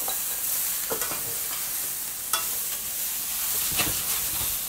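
Tempeh searing in a frying pan: a steady sizzling hiss with a few sharp ticks.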